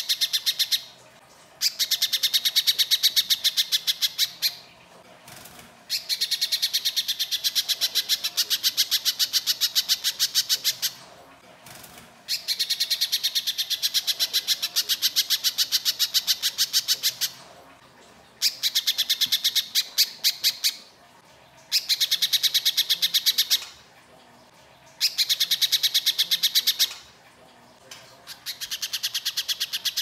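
Little spiderhunter (pijantung pisang) singing in bursts of very fast, harsh repeated high notes. Each burst lasts a few seconds, with short pauses between them, about seven times over.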